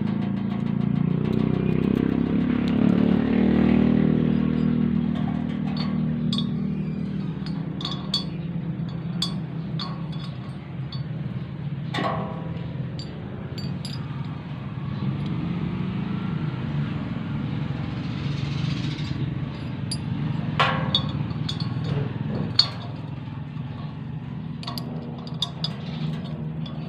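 Sharp metal clinks and taps of small motorcycle engine parts, a threaded cap and washers, being handled and fitted against a finned cylinder head, over a steady low drone.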